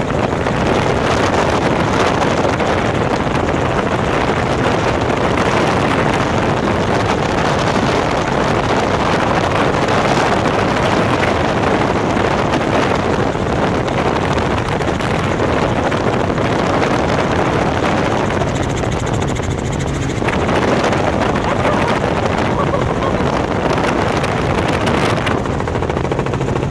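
Helicopter in flight, heard from aboard: a steady, dense noise of engine, rotor and rushing air, with a brief slight dip about three-quarters of the way through.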